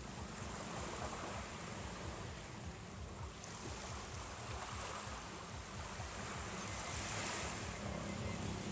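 Small waves washing onto a sandy shore, the wash swelling and easing every few seconds, over a steady low rumble.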